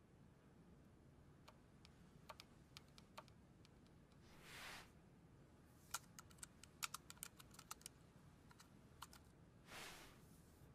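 Quiet room tone with a low hum, broken by scattered light clicks and taps that come in a quick cluster in the middle, and two short soft hisses about five seconds apart.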